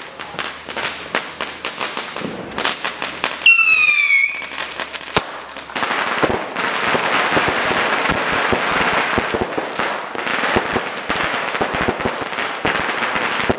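Fireworks going off: rapid sharp cracks, then a loud falling whistle about three and a half seconds in, then a dense, continuous crackle of aerial bursts.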